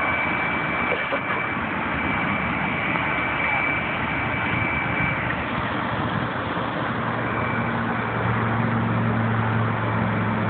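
Steady drone of a running motor under a constant rushing noise; a low, even hum grows stronger about seven seconds in.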